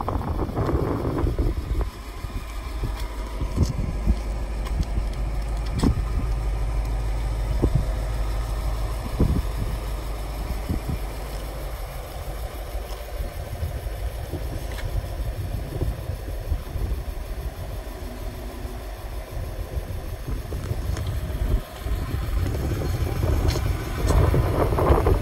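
1940 Ford pickup's 221 cubic inch flathead V8 idling steadily, a low, even rumble, with scattered light clicks. Wind buffets the microphone at the start and again near the end.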